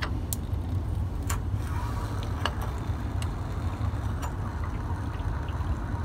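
A handful of sharp, irregular metal clicks from a tubular element wrench being worked on an electric water heater's screw-in heating element as it is loosened, over a steady low hum.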